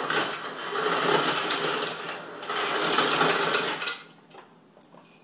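Ice dispenser running on its crushed setting, grinding and rattling crushed ice down into a glass in two bursts. The first burst lasts about two seconds. After a brief pause the second runs about a second and a half more, then it stops.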